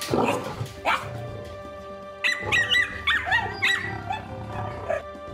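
Dachshund barking and yipping: a couple of sharp barks in the first second, then a quick run of high yips around the middle. Background music plays throughout.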